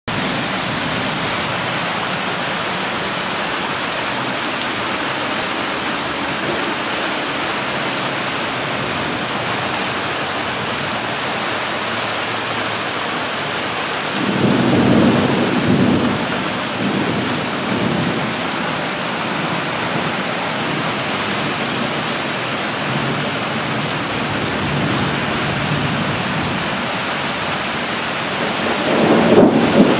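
Heavy rain pouring down in a steady, dense hiss. A deeper rumble swells up about halfway through and again near the end.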